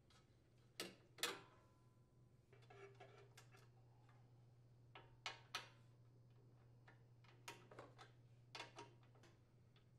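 Faint, irregular metal clicks and taps of a wrench and small bolts being worked loose from a snowblower engine's muffler cover, the loudest about a second in, over a low steady hum.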